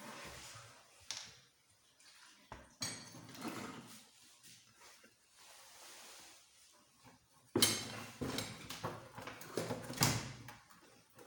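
Metal tools and small motorcycle engine parts being handled during disassembly: scattered knocks and clinks with short scraping, and a dense run of clatter and scraping in the last few seconds.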